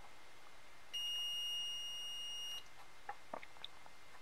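Digital multimeter's continuity beeper giving one steady high beep of about a second and a half, starting about a second in, signalling a short across the diodes being probed. A few faint clicks follow.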